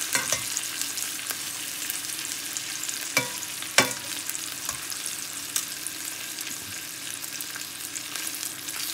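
Flour-dusted lamb liver sizzling as it fries in oil and butter in a pan: a steady crackling hiss, with a few sharp clicks, the loudest about four seconds in.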